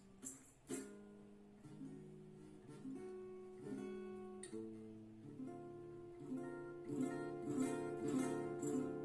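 Acoustic guitar playing, a mix of strummed chords and picked notes that ring on.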